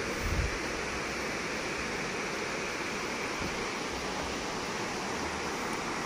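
Waterfall rushing steadily, heard some way off, with a brief low thump about a third of a second in.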